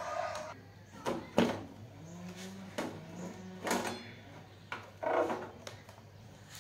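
Irregular knocks and clinks of hard objects being handled on a hard surface, several in all, with a brief low hum about two seconds in.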